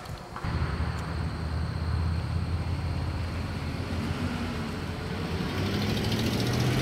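Motorcycle engine running steadily, coming in about half a second in and slowly growing louder.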